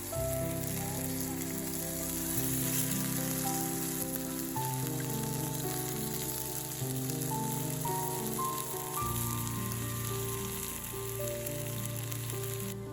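Cod fillet sizzling as it fries in olive oil in a pan, a steady crackling hiss, over background music with held notes and a stepping bass line.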